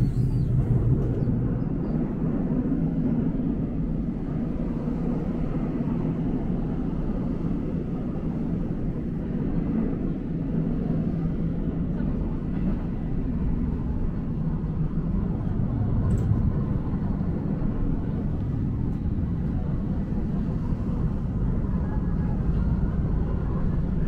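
Seoul Subway Line 2 train running, heard inside the carriage as a steady low rumble of wheels on rail and traction motors.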